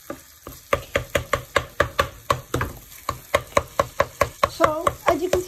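A spoon knocking rapidly against a saucepan, about four or five strikes a second, as ground chicken keema is broken up while it cooks.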